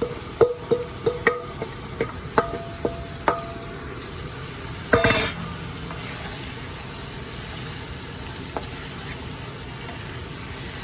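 Curry paste in a pot: a utensil stirs and knocks against the pot several times, then a loud burst about five seconds in as the marinated chicken goes into the hot paste. Steady sizzling follows.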